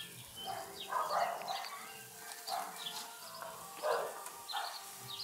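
A dog barking, about six short single barks at uneven intervals, with small birds chirping.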